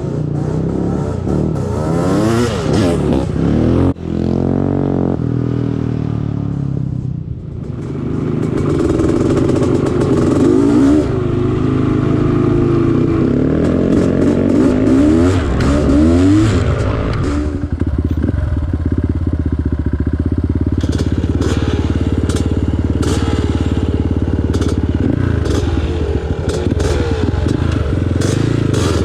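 Off-road vehicle engine running and revving up and down, its pitch rising and falling repeatedly. In the second half, many sharp clicks and clatters sound over the engine.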